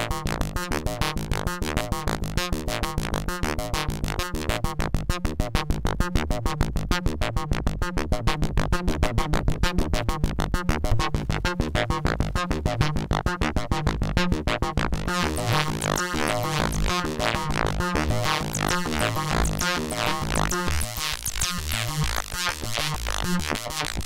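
DIY analog synthesizer (Ad-vantage 03m) playing a fast, evenly repeating pulsed pattern while its knobs are tweaked. About fifteen seconds in, the sound turns denser and hissier, with thin high sweeps running through it.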